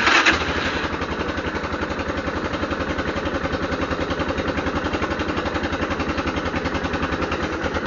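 ATV engine catching right at the start and then idling steadily with even, regular firing pulses. It is a cold start after the machine has sat through the winter.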